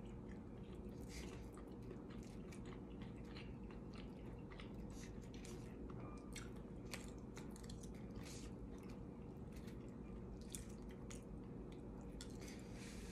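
A person chewing a mouthful of soft lasagna close to the microphone, with irregular wet mouth clicks and smacks.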